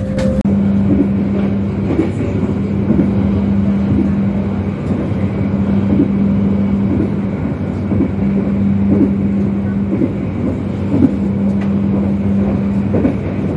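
Passenger train running at speed, heard from inside the carriage: a steady hum over a rumble, with a soft clack about once a second.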